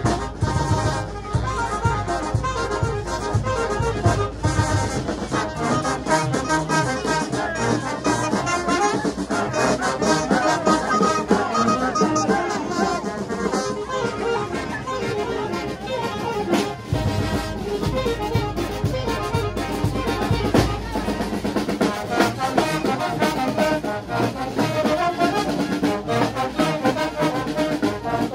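Brass band playing lively dance music: trumpets, trombones, saxophones and sousaphones over drums keeping a steady beat.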